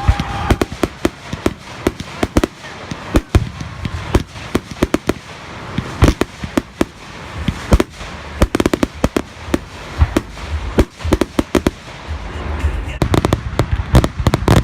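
Fireworks display: shells bursting in a fast, irregular run of sharp bangs and crackles, thickening into a dense barrage near the end.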